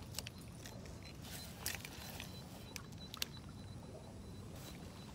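Light clicks and short swishes from a fishing rod and reel as a topwater bass lure is cast and worked, over a steady low rumble of wind on the microphone.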